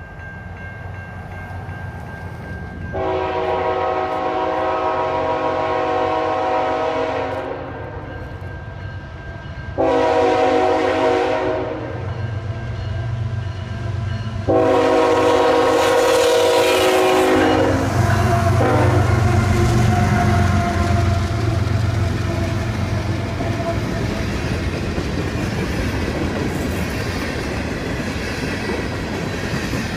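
Air horn of a CN freight train led by GE ET44AC locomotive 3108, sounding for a grade crossing: a long blast about three seconds in, a shorter one around ten seconds, and another long blast that ends as the locomotives pass. The diesel locomotives then rumble by, followed by freight cars rolling past with a steady clatter of wheels on the rails.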